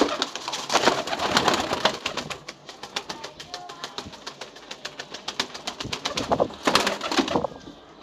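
Pigeon flapping its wings in quick flurries of sharp, rapid wingbeats, heaviest in the first two seconds and again about seven seconds in, with lighter flapping between.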